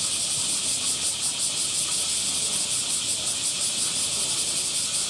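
Chorus of cicadas shrilling: a continuous high-pitched hiss with a fast, even pulse.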